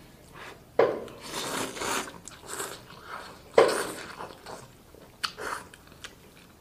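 A person slurping curry noodles in broth, twice, about a second in and again near four seconds, with chewing in between and afterwards.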